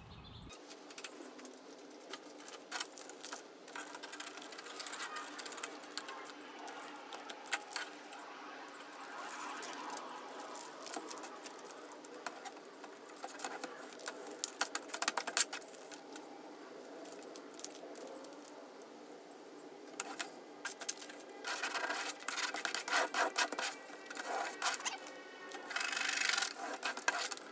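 Crinkling, rustling and peeling of vinyl transfer tape and its paper backing, handled and pressed on a plastic table, with metal bracelets and rings clinking against it. The rustling comes in louder bursts in the last several seconds.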